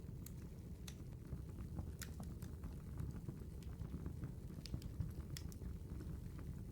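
Campfire burning: a steady low rumble with irregular sharp crackles and pops from the wood.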